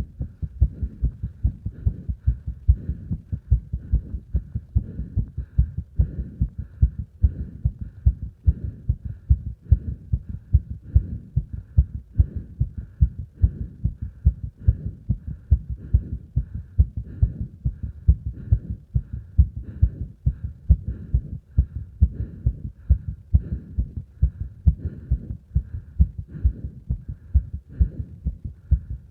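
Human heart sounds during exercise: a steady, regular train of low thuds. Heavy breathing noise can be heard between the beats.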